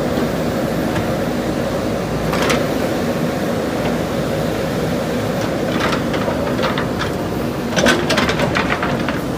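JCB backhoe loader's diesel engine running steadily while it digs, with a knock a couple of seconds in and a cluster of knocks and scrapes near the end as the machine works.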